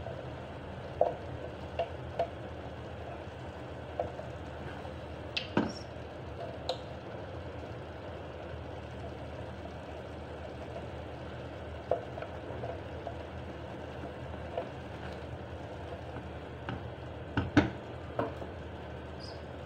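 Cooking utensils stirring greens in a pan, knocking and scraping against it at irregular moments over a steady hiss.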